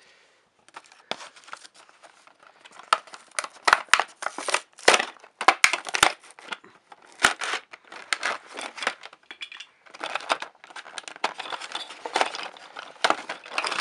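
Clear plastic and cardboard toy packaging crinkling and rustling as it is handled and pulled apart, with many sharp clicks and snaps, while the toy is taken out of its box.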